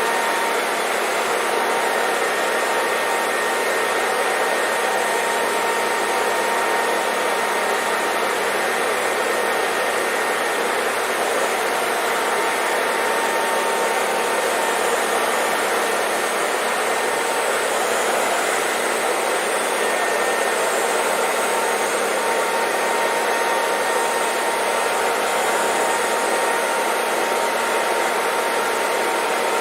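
Hair dryer running steadily: an even, unchanging rush of air with a faint motor whine.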